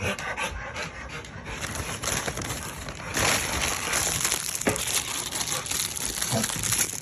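Rustling and crinkling of a dog-treat package being handled and rummaged through, getting louder about three seconds in.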